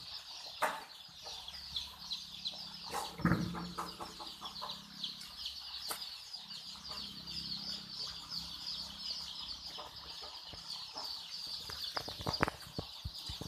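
A flock of chicks peeping continuously, many high chirps overlapping, with a few short knocks and several more close together near the end.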